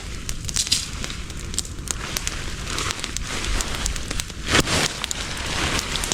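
Campfire burning, with frequent sharp crackles and pops from the burning sticks, and a brief louder rush of noise about four and a half seconds in.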